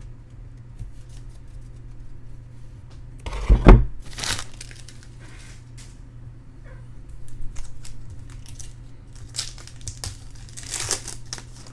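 Foil trading-card pack wrappers being torn open and crinkled, with a loud thump a little over three seconds in. A steady low hum runs underneath.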